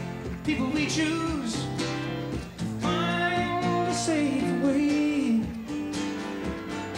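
A man singing a song over strummed acoustic guitar.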